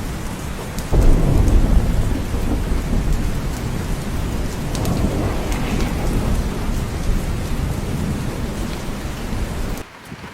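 Steady rain with rolling thunder: a deep rumble rises suddenly about a second in and slowly fades under the rain. The sound drops away abruptly near the end.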